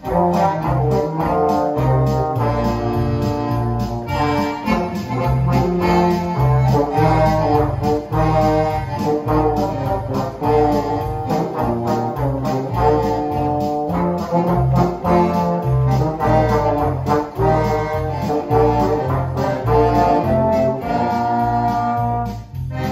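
Polka played live by a small band of accordion, baritone horn, trombone and electric bass guitar, with a steady beat.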